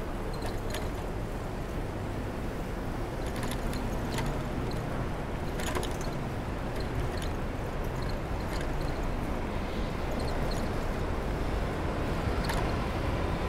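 Steady rush of wind and road noise with city street traffic, heard while riding a bicycle, with a few sharp ticks and rattles along the way.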